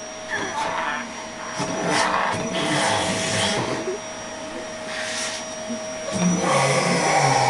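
Vacuum cleaner running with a steady motor whine, its nozzle held to a person's mouth and face, so the rush of suction changes as it grips and lets go. It grows louder and rougher about six seconds in.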